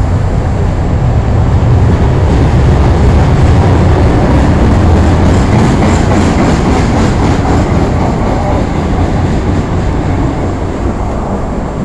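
Buenos Aires Subte (subway) train running past a station platform: a loud low rumble of wheels on rail with a rhythmic clickety-clack over the rail joints, loudest in the middle and easing off near the end.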